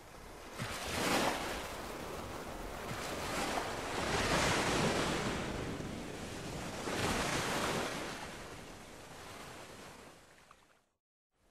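Waves washing on a shore, a rushing surge that swells and ebbs about every three seconds, then fades out near the end.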